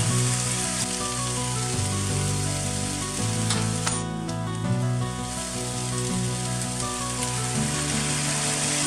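Noodles, chicken and vegetables sizzling in a frying pan on a gas hob, stirred at first, with a couple of sharp clicks about three and a half seconds in. Background music with held low notes plays under it.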